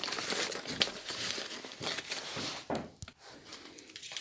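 Paper packing crinkling and rustling as it is pulled off a potted orchid, with many small crackles. The rustling dies down about three seconds in.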